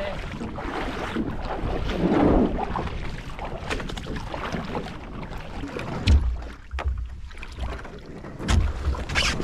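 Water sloshing and splashing around a person wading beside a canoe in a shallow river and stepping into it, with a few light knocks against the canoe. Gusts of wind rumble on the microphone about six seconds in and again near the end.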